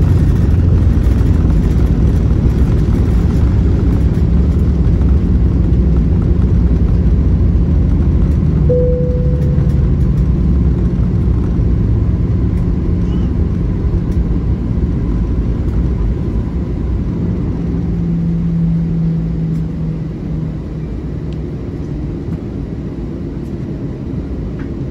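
Airliner cabin noise during the landing roll: a loud, steady low rumble of engines and runway, easing somewhat in the last few seconds as the plane slows. A single short tone sounds once about nine seconds in.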